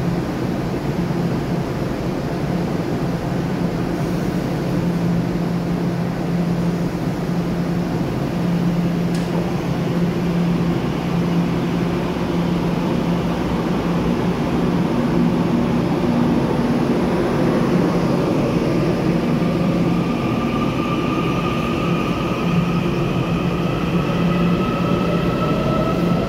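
Taiwan Railway TEMU2000 Puyuma express electric train standing at the platform with a steady hum, then pulling away. From about halfway its traction motors whine in several tones that climb steadily in pitch as it gathers speed.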